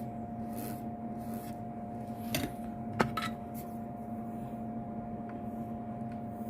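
Faint scrubbing as flux residue is cleaned off the freshly soldered connector pins with cleaning solvent, over a steady hum, with one sharp click about three seconds in.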